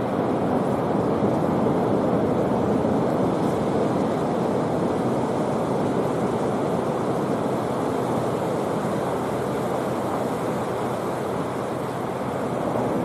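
Surf breaking along a sandy beach, a steady wash of wave noise.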